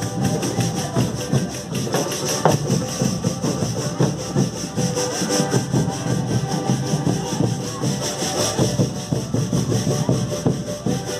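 A congado drum band playing in procession: several large sling-carried drums beaten with sticks in a fast, dense, steady rhythm.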